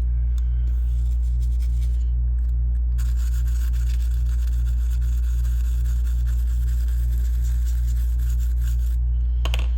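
Cotton swab scrubbing flux residue off a circuit board's solder joints, a rubbing hiss from about three seconds in until about a second before the end. Under it a steady low hum with a regular pulse, about three a second, runs throughout and is the loudest sound.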